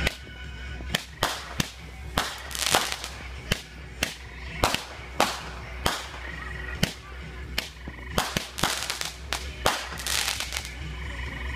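Fireworks going off: a rapid, irregular string of sharp cracks and pops, some followed by a short crackling hiss.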